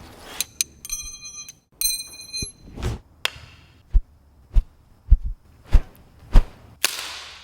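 A run of designed sound effects: two short ringing pings, then a string of sharp thuds about every 0.6 s, ending in a noisy whoosh-like burst.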